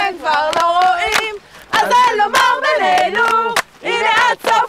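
A group of young men and women chanting and singing together in loud, excited voices, with hand claps.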